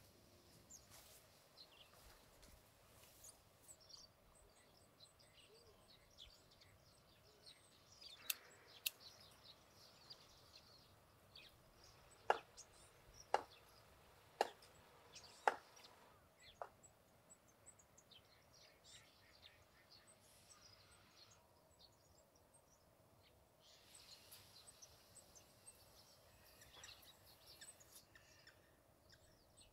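Quiet garden ambience with faint bird chirps, broken by four sharp knocks about a second apart around the middle, with two fainter clicks a few seconds before them.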